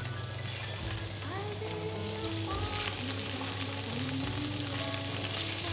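Salmon pieces sizzling as they fry in butter in a pan: a steady frying hiss.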